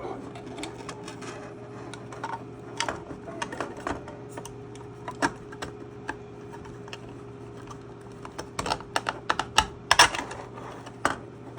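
Irregular clicks and knocks of a circuit board with its battery pack being worked into a small enclosure box, with a denser run of sharp clicks from about eight and a half to eleven seconds in.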